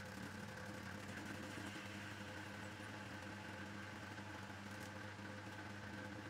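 Homemade metal lathe running steadily under power while its tool cuts a steel part: an even motor and drive hum made of several held tones that does not change.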